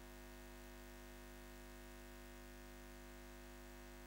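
A faint, steady hum of several held tones with a strong low drone underneath, unchanging throughout.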